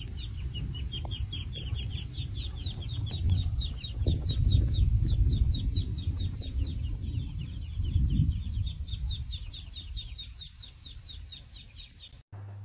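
Chicken chick peeping in a quick, steady run of short high chirps, about four or five a second, over a low rumble that is loudest in the middle. Everything cuts off suddenly near the end.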